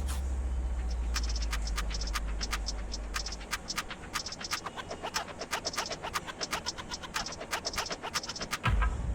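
A rapid, irregular series of sharp clicks and scratches, several a second, with a low steady hum in the first few seconds and a dull thump near the end.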